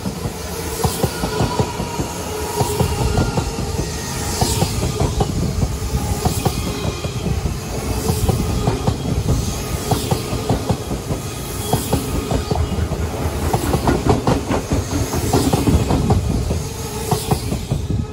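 Odakyu Line electric commuter train passing close by, its wheels clacking rhythmically over the rail joints. The sound drops away near the end as the last car clears.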